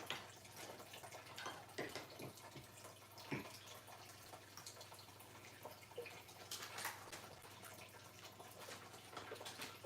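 Faint trickling and dripping water from a turtle tank's filter, with a few light clicks and knocks scattered through.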